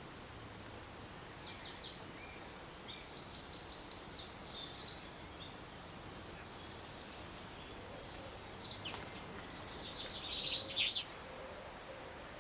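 Songbirds singing in runs of rapid, high repeated notes over a steady faint background hiss. The song starts about a second in, breaks off around six seconds, then resumes and is loudest near the end.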